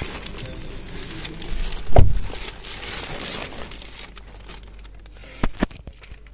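Clear protective plastic sheeting on a new car's rear seat crinkling and rustling as someone sits down on it. A dull thump comes about two seconds in, and two sharp clicks near the end.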